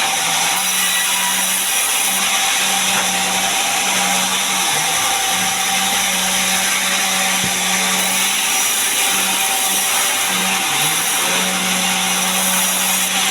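Sawmill saw cutting gmelina timber into boards: a steady, loud cutting noise over a low machine hum that drops out briefly a few times.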